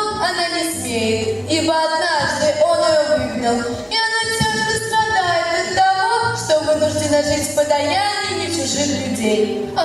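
A song: a woman singing long held notes that slide between pitches, over instrumental backing with a steady bass.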